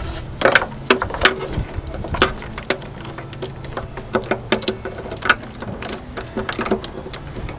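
Irregular small clicks and taps of plastic parts being handled and snapped together as a replacement parking and turn-signal light housing and its bulb socket are fitted.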